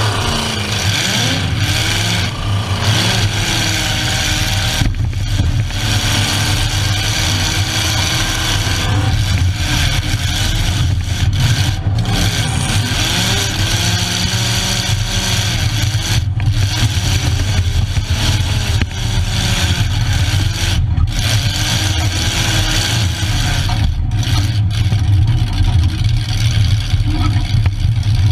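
Demolition derby car's engine running hard, its pitch rising and falling as it revs up and down, heard from inside the stripped cab.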